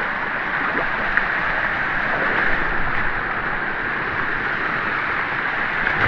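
Steady rush of waterfall water pouring over rock, an even hiss with no break.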